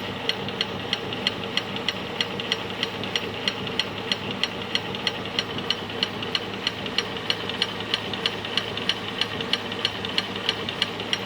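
Steady rhythmic knocking from a VAZ's front left disc brake, about four sharp knocks a second, heard while the brake pedal is pressed lightly. The brake pads are knocking in the caliper because the pad-retaining spring clip holds them loosely and lets them move. A steady hum runs underneath.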